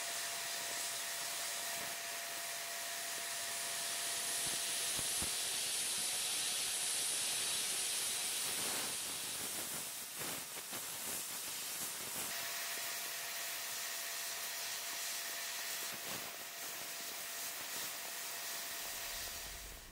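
Sandblasting gun in a blast cabinet spraying aluminum oxide grit at 85 PSI against sheet steel: a steady hiss of air and grit, with a faint steady whistle-like tone underneath.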